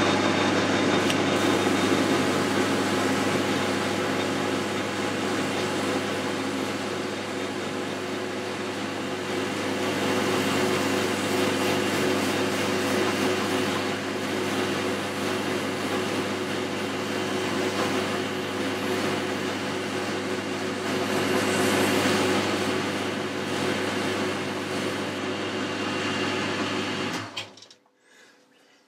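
Boxford metalworking lathe running with a steady hum, its chuck spinning a brake caliper guide pin while emery cloth is held against the pin to polish off hardened grease. The lathe is switched off and runs down near the end.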